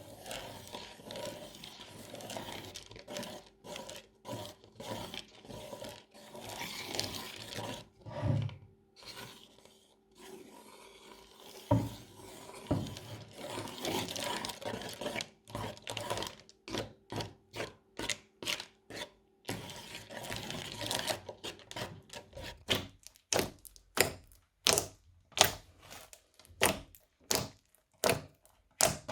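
Crunchy slime being squished and pressed: rubbing, crackling noise, then a steady run of sharp crackling pops about twice a second in the second half.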